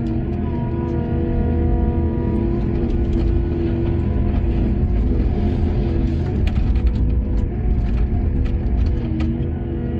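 Heavy diesel machinery running steadily with a low rumble, with scattered sharp clicks and knocks over it.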